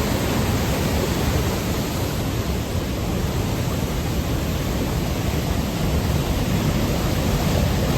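Large waterfall rushing with a loud, steady roar of falling water, heard close up from the edge of the falls.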